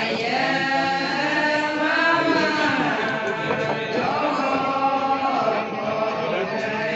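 A group of women chanting a ponung, the Adi dance song, together in unison, with long held, slowly gliding sung lines.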